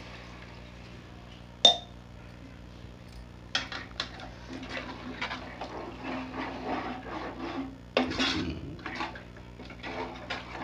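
Steel ladle stirring watery chicken curry in a metal pot. There is a single sharp clink against the pot about two seconds in, then from about three and a half seconds a run of repeated scraping and clinking strokes of the ladle against the pot.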